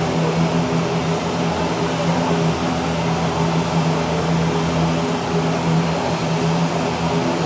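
ATR 72 twin turboprop engines running, a steady propeller drone with a low hum and a rushing noise that hold level without rising or falling.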